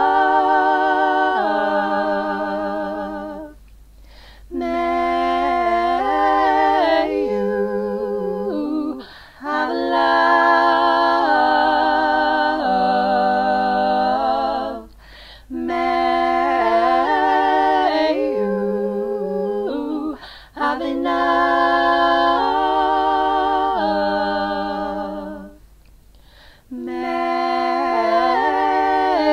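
One woman's voice multitracked into three-part a cappella harmony, singing long, wordless held notes with vibrato. The notes come in phrases of a few seconds, with short breaks between them.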